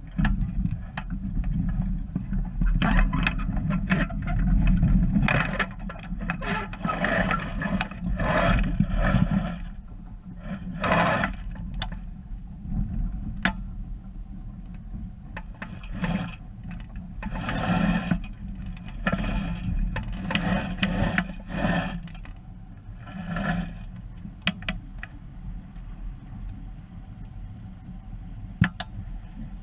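Wind buffeting the microphone of a camera mounted on a small sailing dinghy, with a steady low rumble, while water splashes and rushes against the hull in irregular bursts. A few sharp knocks sound on the boat, the loudest near the end.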